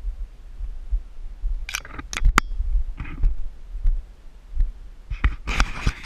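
Irregular dull low thumps, as of a camera being carried on foot, with a few sharp clicks or scrapes about two seconds in and rustling bursts near the end.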